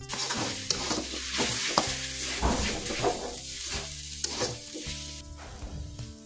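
Stir-fried egg noodles and vegetables sizzling in a hot wok as metal tongs toss them, with repeated clacks and scrapes of the tongs against the pan. The sizzling drops off about five seconds in.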